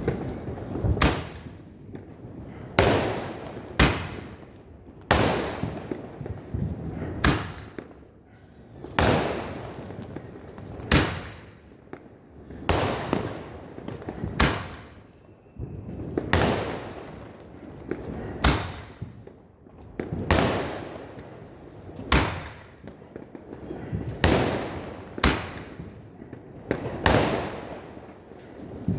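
Sonny Fireworks 'Army 12 Shots' fireworks cake firing shot after shot: a sharp bang every one to two seconds, each one trailing off before the next.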